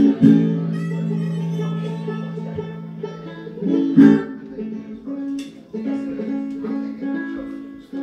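Music led by a plucked guitar: long held notes, with strong plucked notes just after the start and again about four seconds in.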